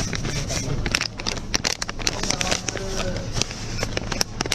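Irregular sharp clicks and taps over a steady low hum, with faint voices in the background.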